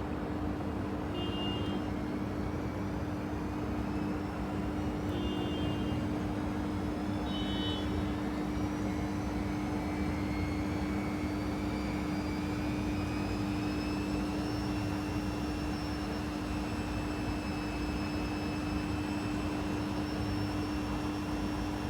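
Panasonic XQG32-A312D compact washing machine running with a steady hum, its motor whine slowly rising in pitch as the drum speeds up. A few faint short high chirps come in the first several seconds.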